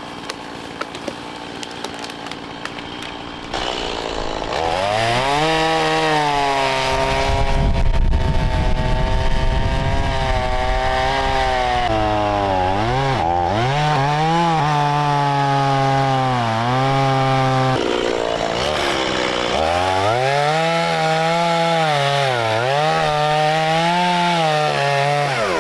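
Gas chainsaw cutting through a fallen tree, starting up loudly about four seconds in. Its engine pitch dips and climbs again and again as the chain bogs down in the wood and revs free.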